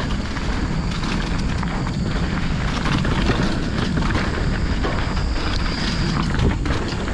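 Wind rushing over the camera microphone and mountain bike tyres rolling fast over a dirt trail, with frequent knocks and rattles from the bike over bumps.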